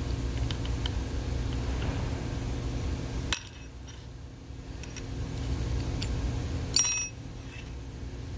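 Allen key tightening a clamp screw, with a light metallic click about three seconds in, then a sharp, ringing metal clink near the end as the steel hex key is laid down on the metal fixture plate. A steady low shop hum underneath.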